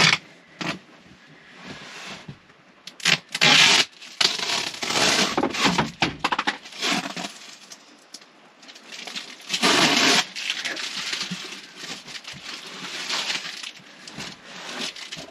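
Plastic wrapping crinkling and tearing as it is pulled off a rolled foam pad, in irregular rustling bursts, loudest a few seconds in and again about ten seconds in.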